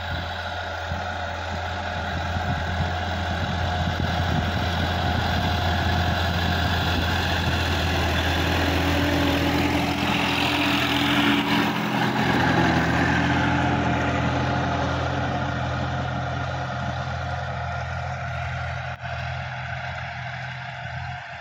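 Sonalika tractor's diesel engine running steadily. It grows louder as the tractor passes close by about halfway through, then fades as it moves away.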